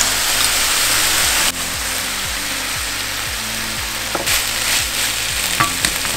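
Seitan and broccoli stir-fry sizzling in a hot frying pan, a steady hiss that drops a little about one and a half seconds in.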